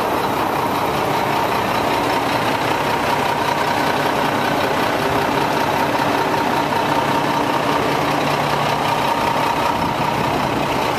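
1994 Mack DM690S water truck's Mack EM7-300 diesel engine idling steadily.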